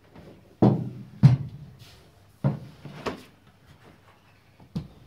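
Dull knocks and bumps against the bare sheet-metal car body as the firewall insulation pad is handled into the footwell, each ringing briefly in the empty shell. About five in all, the loudest two in the first second and a half.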